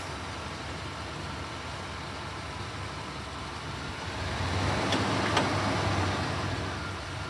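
Truck engine idling steadily. About four and a half seconds in, the snowplow's electric hydraulic pump motor runs for about two seconds, with a click near the end, working the plow's lift cylinder.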